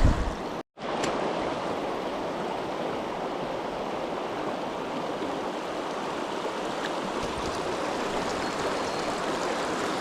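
Mountain stream rushing steadily over rocks. There is a low thump at the very start, and the sound cuts out completely for a moment just under a second in.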